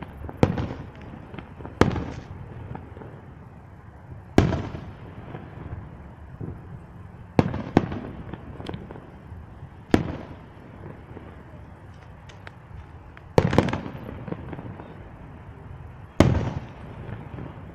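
Fireworks going off: about eight sharp bangs spaced one to three seconds apart, each trailing off in a short echo, with a few fainter pops between them.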